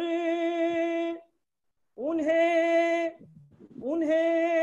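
A man's voice singing Urdu verse unaccompanied, in three long held notes with short breaks between them, the later two sliding up into their pitch.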